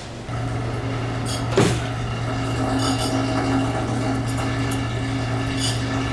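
Steady low mechanical hum of the ship's onboard machinery, with one sharp knock about a second and a half in.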